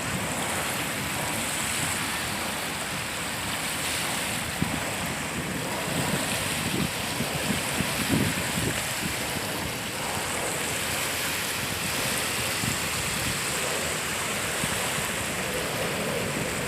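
Small waves washing on the shore, a steady rushing noise, with wind buffeting the microphone now and then in low rumbles.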